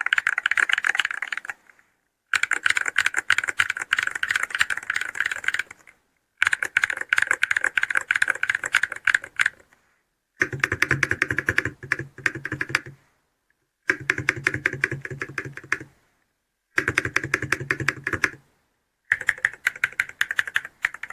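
Typing on a Nano 68 magnetic-switch mechanical keyboard with an aluminium alloy plate: fast runs of crisp keystroke clicks, several bursts broken by short pauses.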